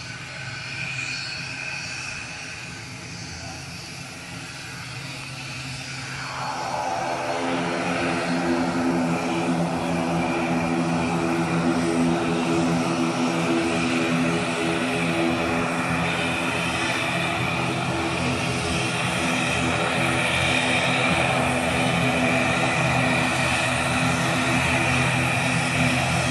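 Turboprop airliner's engines and propellers running, a steady hum of several tones with a high whine above it. It grows louder about six to eight seconds in, then holds steady.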